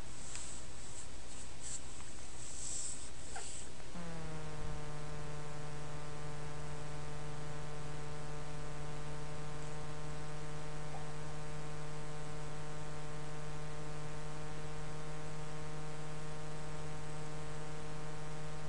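A steady hum with many overtones comes in about four seconds in, dipping slightly in pitch as it starts and then holding steady, over a constant background hiss. A few faint ticks are heard in the first few seconds.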